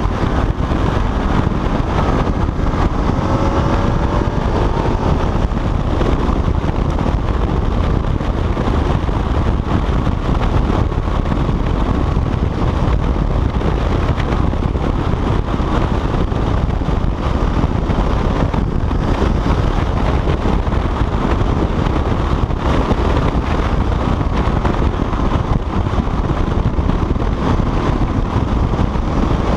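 Wind buffeting on the microphone over the steady running of a motorcycle engine at road speed, with a few faint rising engine notes as it revs a few seconds in.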